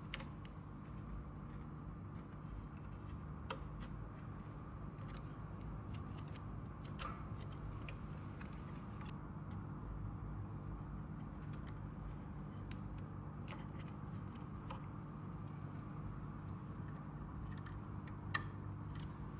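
Faint steady low hum with scattered light clicks and taps: wiring harness plugs being handled and pushed onto a heat press circuit board.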